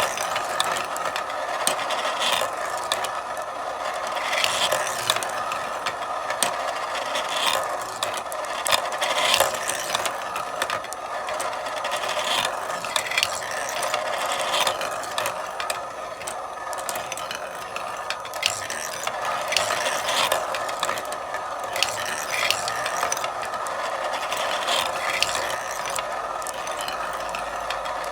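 Marbles running through a marble run: a continuous rolling rattle with frequent, irregular sharp clicks as the marbles knock along the track.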